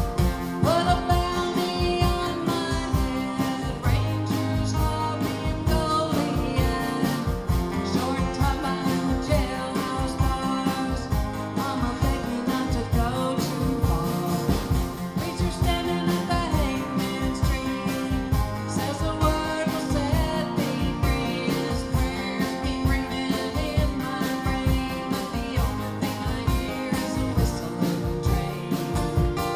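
Live country-style song: a woman singing over a strummed acoustic guitar with a steady rhythm.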